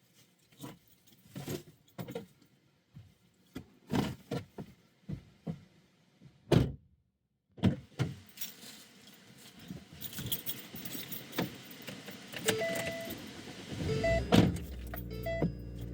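Keys jangling, with clicks and knocks of someone settling into a car. About two seconds before the end the car's engine starts and runs steadily, with short repeated dashboard warning chimes beeping.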